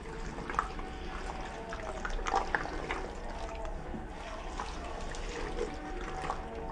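A spatula stirring penne pasta through thick cheese sauce in a pan: continuous wet stirring with irregular short knocks.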